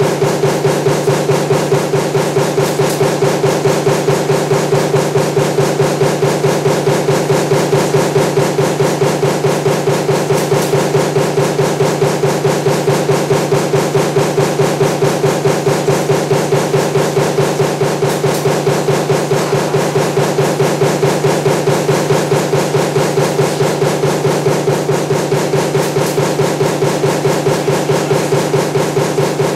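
Power press stamping table-fan motor parts with its die, hitting in rapid, evenly spaced strokes over a steady machine hum.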